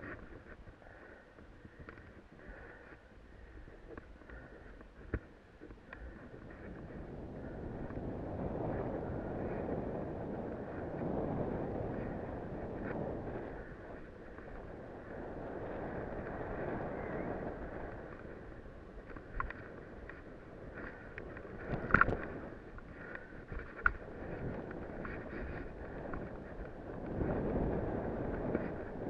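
Snowboard sliding and turning through deep, tracked powder snow: a rushing hiss of snow under the board that swells and fades with each turn, with wind on the microphone. A few sharp knocks, the loudest about three quarters of the way through.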